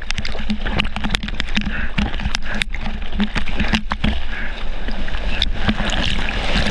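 Seawater splashing and rushing against a surfer's action camera held at water level while paddling on a surfboard. Many sharp splash crackles ride over a constant wash.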